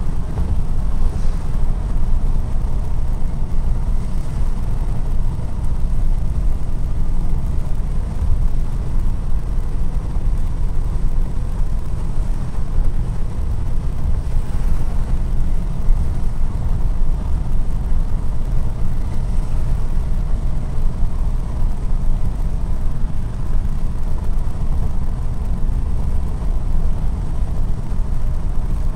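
Steady road noise inside a 1968 Ford Torino's cabin while cruising: a continuous low rumble of engine, tyres and wind with a faint steady drone above it.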